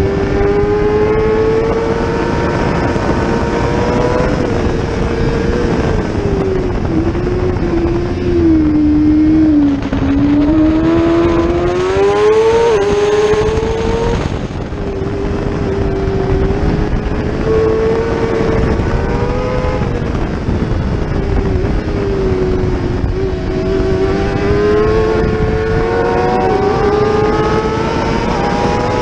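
600cc-class racing motorcycle engine at high revs, heard from onboard. Its pitch falls in steps as the bike slows for a corner about a third of the way in, climbs back hard with a quick shift-dip, holds steady through the middle, and rises again near the end. A steady rush runs underneath.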